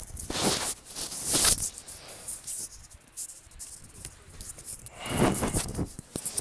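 Irregular bursts of rustling, scraping noise, loudest near the start and again about five seconds in.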